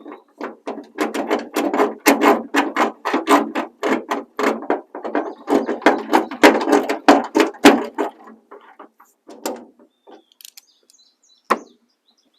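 Ratchet wrench clicking rapidly as the three tailgate latch bolts are tightened down. The clicking thins out after about eight seconds, with one sharp click near the end.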